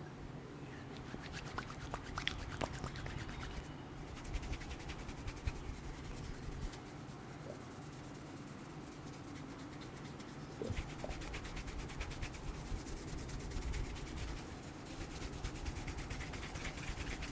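Hands rubbing and massaging skin and hair close to the microphone: a continuous, rapid rubbing texture with small crackles.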